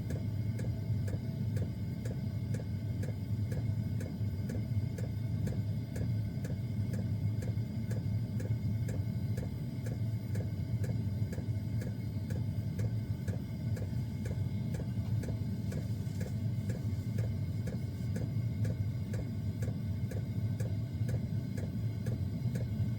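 Portable diesel air heater running: a steady low hum from its fan and combustion, with the fuel dosing pump ticking evenly about two to three times a second.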